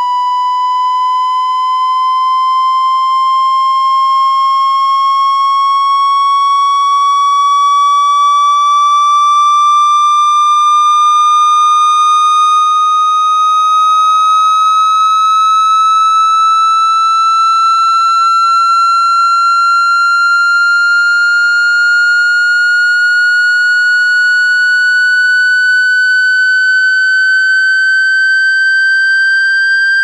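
A loud, steady electronic tone slowly rising in pitch, played through a phone speaker to shake water out of its grille: a speaker water-ejection tone.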